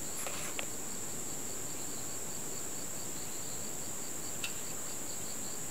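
Crickets trilling in a steady high-pitched drone, with a second insect chirping in an even rhythm of about three chirps a second. A single faint click comes about four and a half seconds in.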